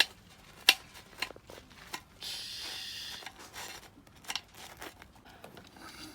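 Handling noises: a string of sharp clicks and knocks, with a hiss lasting about a second a little over two seconds in.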